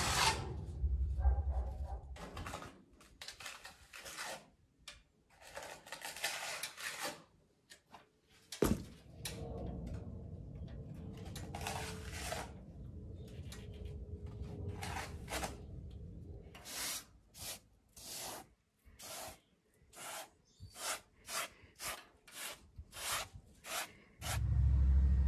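Sponge float rubbing over fresh cement render in repeated scraping strokes, longer and spaced out at first, then short and quick at about two a second near the end. One sharp knock about nine seconds in.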